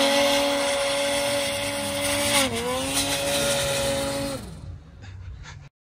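Polaris Patriot Boost snowmobile's turbocharged two-stroke engine held at high revs as the sled pulls through deep powder. The pitch dips briefly and picks back up about two and a half seconds in, then falls away and fades near the end.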